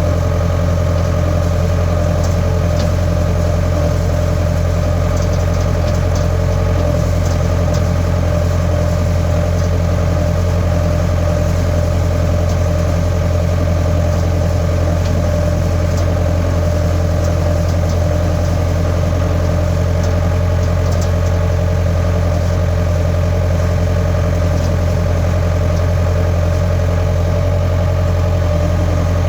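Skid steer engine running at a steady speed, an even low hum with no revving.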